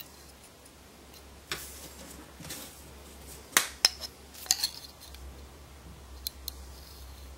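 Scattered light clicks and clinks as a steel ruler and a small wooden height gauge with a plexiglass face are handled and fitted together, the loudest a pair of sharp clicks about three and a half seconds in.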